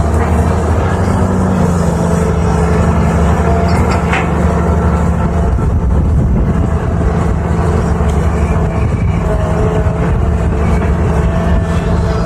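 A 320 hydraulic excavator's diesel engine running steadily and heavily, with a single short knock about four seconds in.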